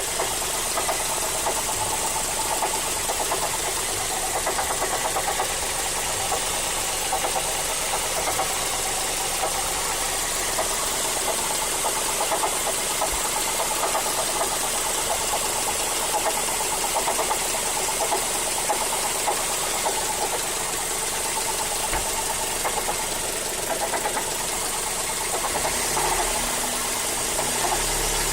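Mazda3 GT's 2.0-litre four-cylinder engine running steadily with a fast, even knocking that keeps time with engine speed. The owner cannot tell whether it comes from the engine itself or an accessory, and suspects the A/C compressor clutch.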